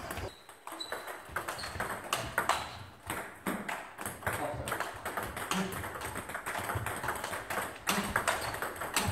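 Table tennis knock-up: the ball clicking sharply off bats and the table in a quick back-and-forth, many clicks in irregular succession.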